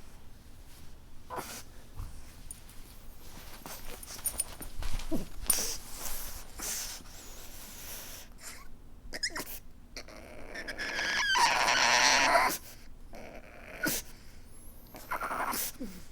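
A pug weeping: a run of short sniffs and whimpers. About ten seconds in comes a longer, louder outburst lasting around two seconds, followed by a few more short sounds.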